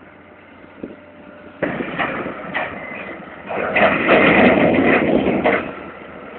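Stones being unloaded by heavy machinery: a sudden clatter of rock about one and a half seconds in, a few sharp knocks, then a loud rumbling rush of stones for about two seconds before it eases.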